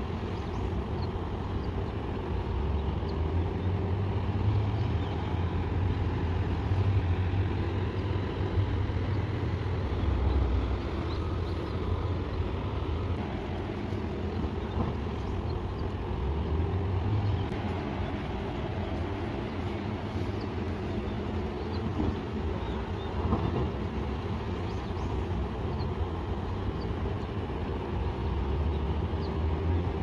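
Wind rumbling on the microphone over a steady background of distant motor noise.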